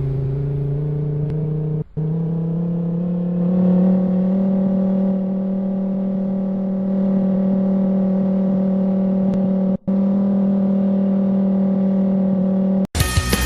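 Outdoor tornado warning siren sounding: its tone rises steadily over the first few seconds, then holds one steady note, broken twice by brief gaps. It cuts off suddenly near the end as music starts.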